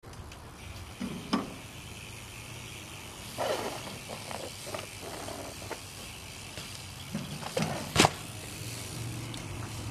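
BMX bike on concrete and stone ledges: tyres rolling, with a handful of knocks and clacks as the bike hits, hops and lands on the ledges, the sharpest impact about eight seconds in.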